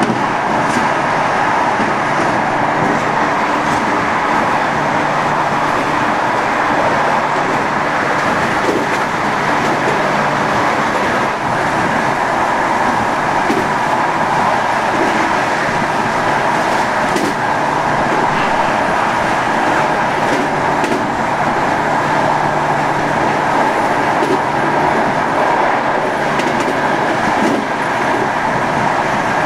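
Modernised SNCB AM80 electric multiple unit running at full power, heard from inside the carriage: a steady whine from the traction motors and equipment over continuous rolling noise.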